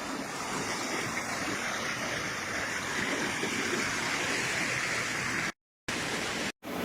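Floodwater rushing steadily, a continuous roar of fast-moving water. It cuts out twice briefly near the end.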